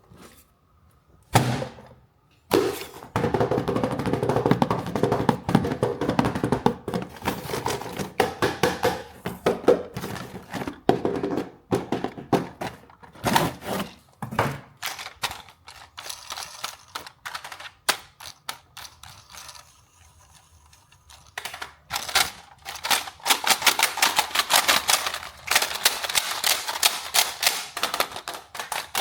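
Plastic and cardboard toy packaging being handled and unwrapped: dense, rapid crackling and clicking in two long runs, with a single sharp thunk about a second in.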